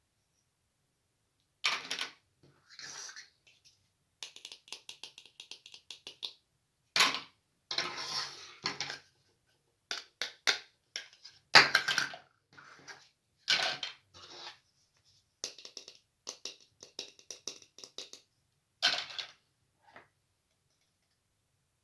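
Small plastic toy kitchen pieces handled close to the microphone: sharp clacks and clatters, with runs of rapid ticking about four seconds in and again past the middle.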